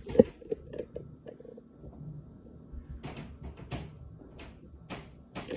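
A sharp knock just after the start, then scattered light clicks and, from about halfway, a series of short rustling sounds: kitchen handling noises, like a cupboard or oven door and things being moved.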